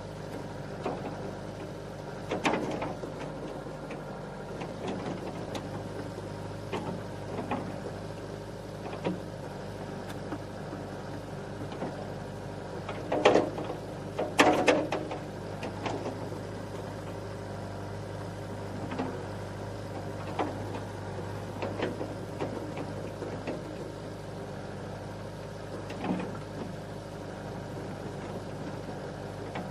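Excavator diesel engine running steadily, with scattered knocks and clanks over it; the two loudest come about halfway through.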